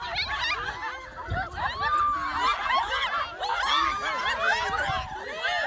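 A group of young people shouting and laughing over one another, many voices at once, as a tug-of-war is pulled.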